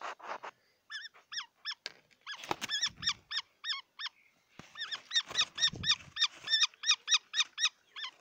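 A falcon calling: a quick series of short, high, sharply hooked notes, about three to four a second, in two runs with a short break between them. Low thuds and rustling sound under the calls twice.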